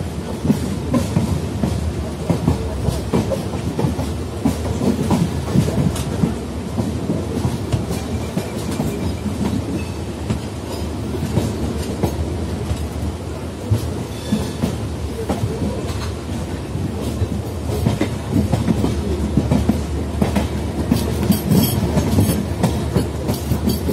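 Passenger train coach running along the track: a steady rumble with an irregular clickety-clack of the wheels over rail joints and points.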